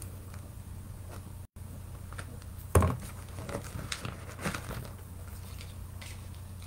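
Light clicks and rustles of bead bracelets and other jewelry being handled, with one sharper knock about three seconds in, over a steady low electrical hum. The sound drops out for an instant about one and a half seconds in.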